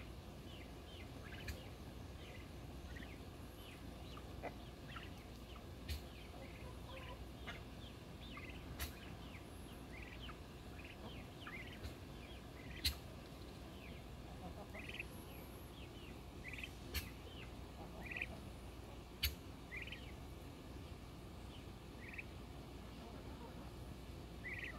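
Young turkey poults peeping: many short high calls scattered throughout, over a low steady background hiss. A few sharp clicks stand out now and then.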